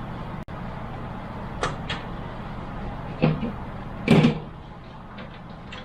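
Plastic front panel of a PC case being pried loose, its clips snapping free: two light clicks, then a knock and a louder clatter as the panel comes away, over a steady low hum.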